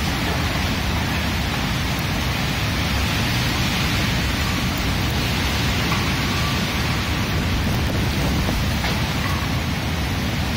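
Strong typhoon wind blowing steadily, buffeting the microphone into a constant low rumble under a hiss.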